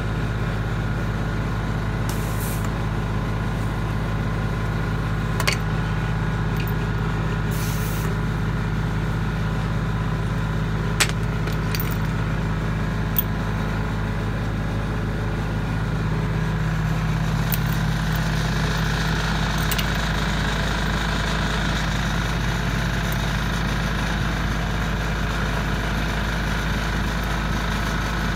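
Air hissing through a clip-on chuck into a 19.5-inch truck tire as it is inflated, the hiss growing stronger about two-thirds of the way through, over the steady low drone of an engine running. A few sharp clicks.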